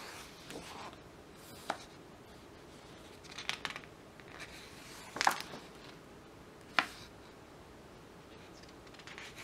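Heavy glossy pages of a large hardcover photo book being turned by hand: soft paper rustling with a few crisp flips and snaps of paper, the loudest just past halfway.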